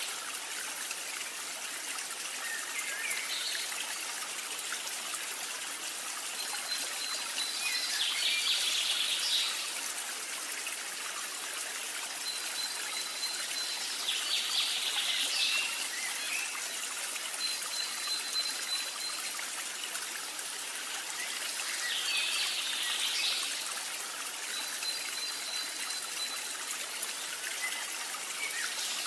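Steady trickling-water sound like a small stream. A thin high tone and a brief crackly patch recur about every seven seconds, like a repeating ambience loop.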